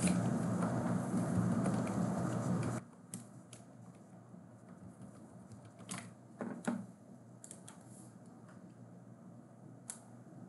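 Faint, scattered computer keyboard taps and mouse clicks, a handful of separate clicks. For the first few seconds a steady low background hum and noise sits under them, then drops away suddenly, leaving the clicks over near-quiet room tone.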